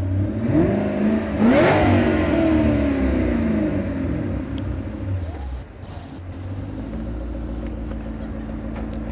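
2007 Ford Mustang Shelby GT500's supercharged 5.4-litre V8 revved hard once, the pitch climbing steeply and falling back, then a brief smaller blip before it settles into a steady idle.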